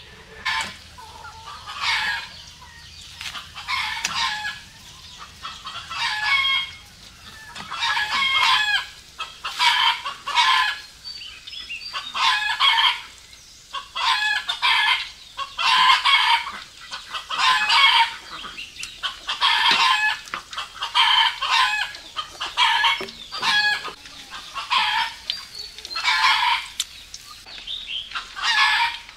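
Chickens calling over and over, a short call about once a second.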